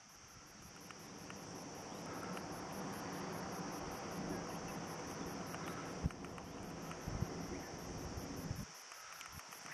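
Insects calling steadily, a continuous high buzz with a fast, evenly pulsing trill above it. Under it a low rushing noise swells over the first few seconds and falls away near the end, with two soft knocks.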